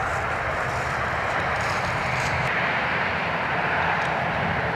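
Steady outdoor rushing noise with a low rumble underneath, with no distinct events.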